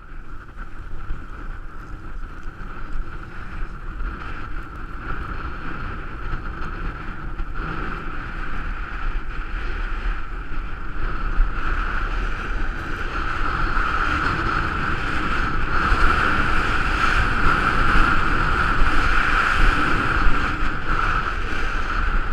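Wind rushing over the microphone and skis sliding on packed snow during a downhill ski run, a steady noise that grows louder from about halfway through as speed picks up.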